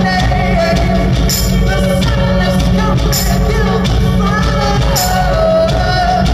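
Live electronic music with a man singing long, gliding notes into a microphone over a heavy, steady bass, with a bright high hit about every two seconds.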